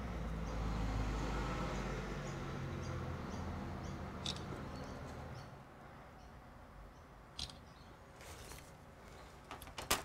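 Handling noise at a workbench: a low rumble for the first five seconds or so, then quieter, with a few light clicks and taps, the sharpest just before the end.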